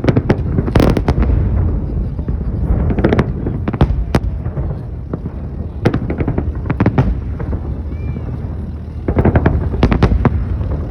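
Fireworks display: a string of booming bursts, some in quick clusters, over a continuous low rumble.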